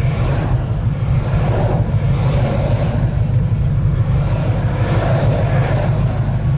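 The 5.0-litre V8 of a tuned 2017 Ford Mustang GT, heard from inside the cabin with road noise, running as a steady, deep drone.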